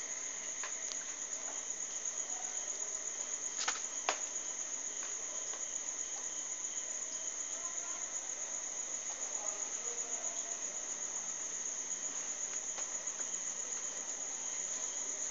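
Crickets chirping in a steady, high-pitched, continuous trill. Two short clicks come just under four seconds in.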